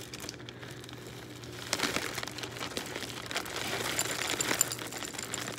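Dry dog kibble rattling into a food storage container, with the plastic food bag crinkling.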